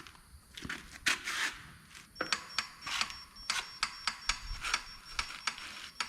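Sharp metallic clicks and taps, a few a second, from hand tools and parts at work on the engine block's crankshaft and bearing caps.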